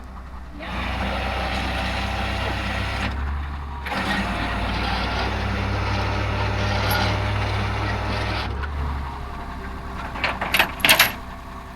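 A vehicle engine pulling away and accelerating, with a short drop about three seconds in like a gear change, then building again and easing off near nine seconds. A few sharp clicks near the end.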